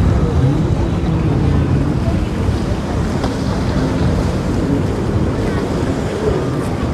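Low, steady rumble of a San Lorenzo motor yacht's engines as it passes slowly, mixed with wind buffeting the microphone and water washing.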